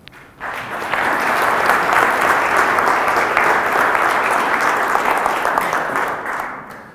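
Audience applauding. The clapping starts about half a second in, is at full strength within another half second, and dies away near the end.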